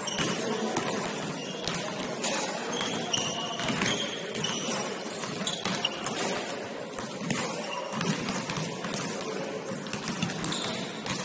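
Game sounds from an indoor basketball court: the ball bouncing, with short high squeaks scattered throughout and players' voices in the background.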